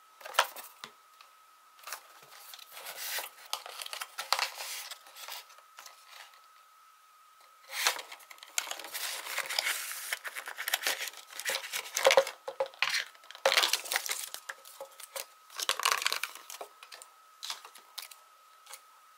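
Cardboard and paper packaging handled and opened by hand: irregular rustling, scraping and crinkling with sharp clicks, in two spells with a lull in the middle. A faint steady high whine sits underneath.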